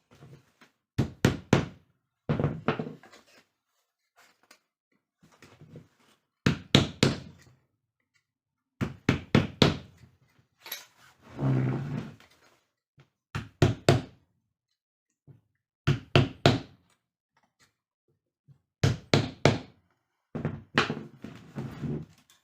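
Sharp knocks in quick groups of two to four, repeating every two to three seconds, like striking during chair repair work, with one longer, rougher sound lasting about a second near the middle.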